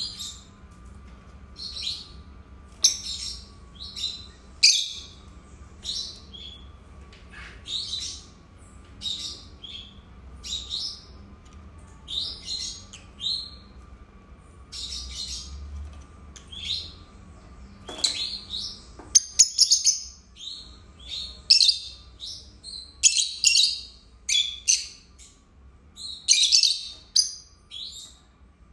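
A pair of peach-faced lovebirds chirping in short, sharp, high calls about once a second. The calls come faster and overlap more from about two-thirds of the way through.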